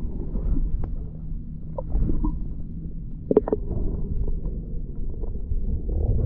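Muffled low rumble of water moving around a camera held underwater, with a few sharp clicks about two and three and a half seconds in.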